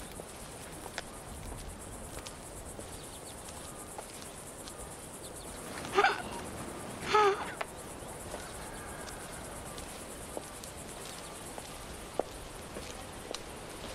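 Steady high chirring of insects such as crickets or cicadas, with scattered faint ticks. About six seconds in, two short, loud, high-pitched cries in a woman's voice come about a second apart.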